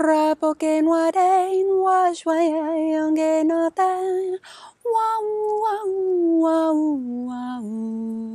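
A woman's voice singing wordless light-language syllables in short, quavering phrases. About five seconds in, a long note slides down in pitch and settles into a held lower note near the end.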